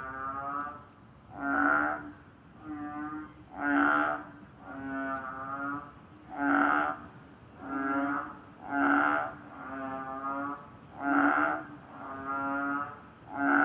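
Frogs calling, the kind of calling that only starts up when it rains. The calls repeat about once a second, each lasting around half a second, with louder and softer calls alternating.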